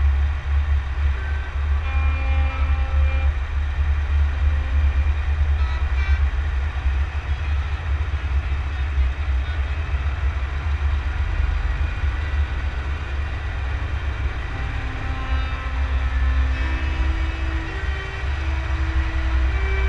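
Heavy rumble of a Scania truck driving at speed, heard through wind buffeting on a bonnet-mounted camera. Short horn tones sound now and then, with alternating two-pitch horn tones near the end.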